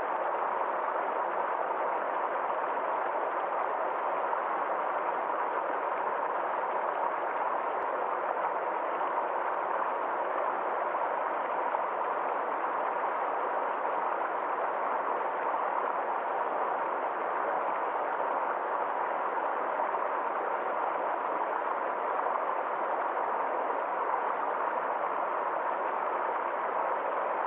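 Water flowing steadily in a stream, an even, unchanging rush.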